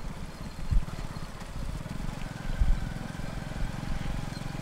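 Low, pulsing rumble of a vehicle engine running, with two sharp thumps, one about a second in and one just past the middle.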